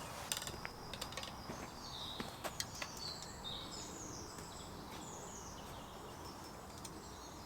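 A songbird singing high, short phrases that step downward in pitch, over faint steady woodland background noise, with a few faint clicks and knocks in the first few seconds.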